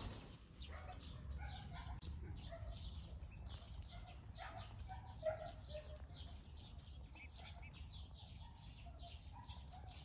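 Faint, soft bird calls: short, irregular clucking and chirping notes scattered through, one a little louder about five seconds in.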